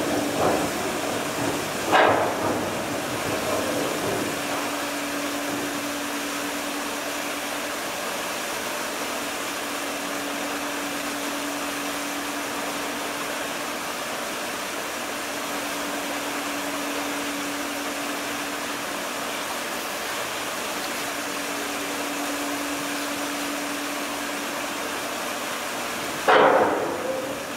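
Steady rushing noise on board a moving expedition ship, with a faint steady machinery hum underneath. A sharp knock comes about two seconds in, and a louder one near the end.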